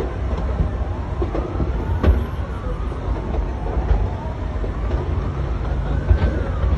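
Emergency-vehicle siren wailing, its pitch sweeping slowly up and down, over a steady low rumble. Sharp bangs cut through about two seconds in and again near the end.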